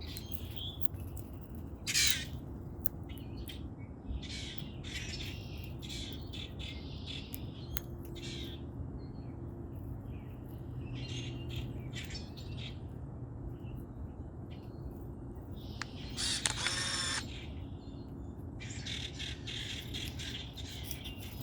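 Common grackles calling: a string of short, harsh squawks and squeaky clicks, with one longer buzzy call about two-thirds of the way through, over a steady low background noise.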